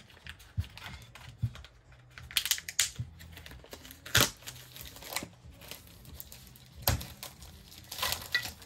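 Clear plastic wrapping being slit and peeled off a wooden cutting board: scattered crinkling and rustling mixed with sharp clicks and taps, the loudest about four and seven seconds in.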